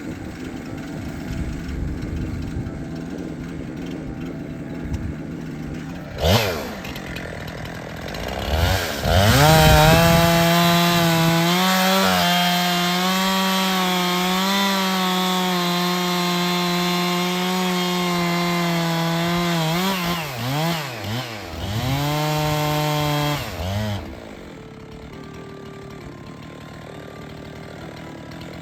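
Two-stroke chainsaw idling, revved briefly around six seconds in, then run at full throttle cutting through wood from about nine seconds in, with a couple of short throttle dips near the end of the cut. It drops back to idle about twenty-four seconds in.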